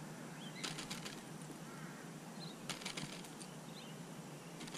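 Faint, scattered bird chirps, with three short bursts of rapid clicking: about a second in, near three seconds, and at the end.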